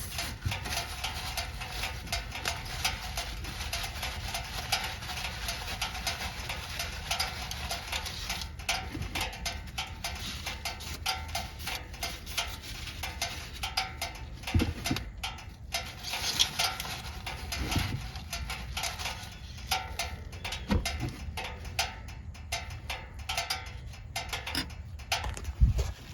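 Small clicks, taps and rustles of hands handling the dipstick and engine parts, over a faint steady background.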